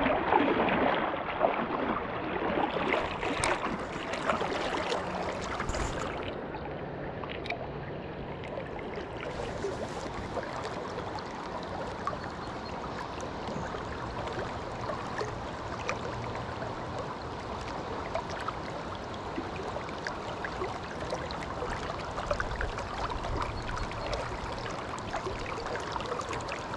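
River current rushing and lapping close to the microphone: a steady wash of moving water with many small splashes, louder for the first couple of seconds.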